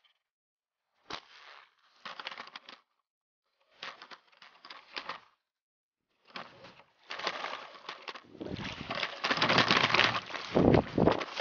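Handling noise on a bow-mounted camera: a sharp click about a second in, then bursts of rustling and crunching that grow longer and louder toward the end as the bow is swung through bankside grass and weeds.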